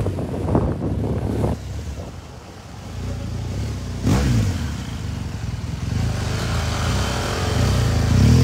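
Motorcycle engine running on the move. Its pitch dips and climbs again a few times as the throttle changes, and it eases off briefly about two seconds in.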